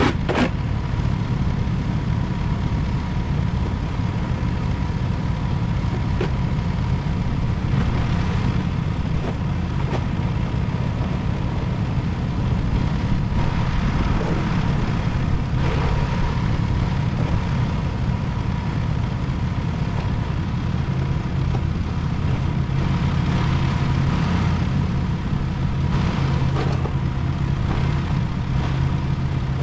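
A vehicle engine running steadily, its low hum growing a little stronger about two thirds of the way through.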